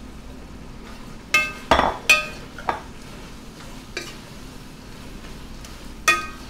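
Large metal ladle stirring chicken pieces in a stainless steel pan, knocking against the pan with about six ringing clinks, most of them between one and three seconds in and one near the end.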